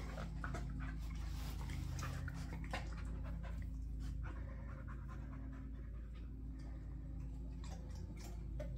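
A young dog panting as it noses around inside its crate, over a steady low hum.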